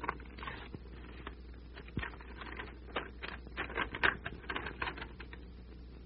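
A string of irregular small clicks and soft rustles, like light handling noise, busiest from about three and a half to five seconds in, over a low steady soundtrack hum.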